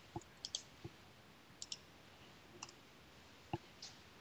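Faint, scattered clicks of a computer keyboard and mouse, about nine in all at irregular spacing, as a git clone command is typed, pasted and entered; the loudest click comes about three and a half seconds in.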